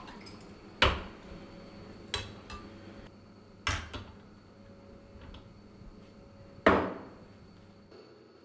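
Glasses knocking down on a wooden bar counter: about five separate sharp knocks and clinks, the loudest near the end.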